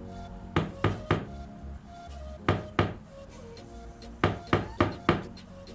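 A hand tapping on a table, about nine sharp knocks in three clusters: three quick ones, then two, then four.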